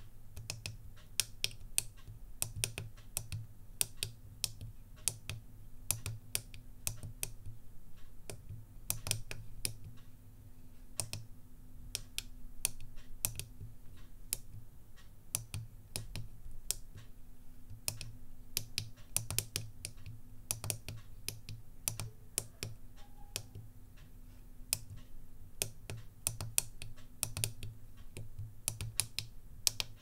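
Pockettype miniature keyboard's microswitches clicking under slow, halting typing: sharp clicks a few a second, broken by short pauses.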